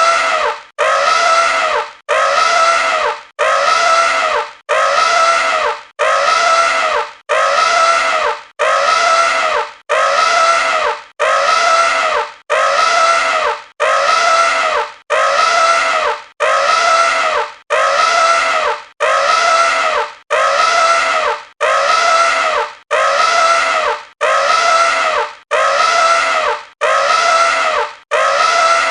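Angry elephant trumpeting: the same short, loud trumpet blast repeated over twenty times, about one every 1.3 seconds, as an identical loop.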